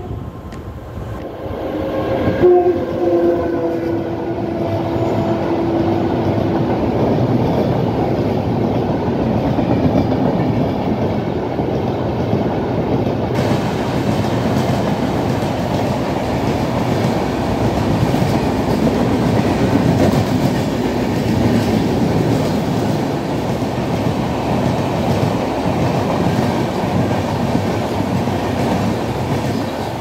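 WAP-5 electric locomotive's horn sounding one long steady note about two seconds in, fading out after four or five seconds. It is followed by the loud, steady rumble and clatter of an express train's coaches running past at speed.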